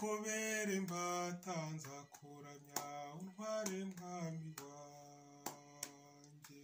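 A man's voice singing the slow opening hymn of a Mass, in long held notes that step and slide between pitches, growing fainter toward the end.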